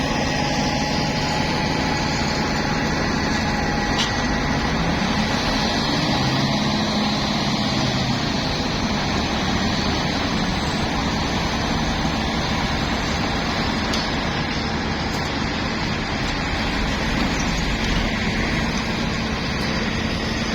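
Heavy machinery engine running steadily, its note wavering briefly around the middle.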